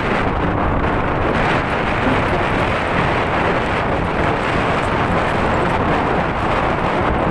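Strong wind blowing across the microphone: a loud, steady rushing noise heaviest in the low end.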